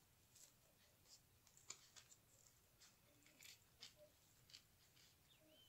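Near silence, with faint scattered clicks and rustles of fingers handling and pressing glued EVA foam pieces.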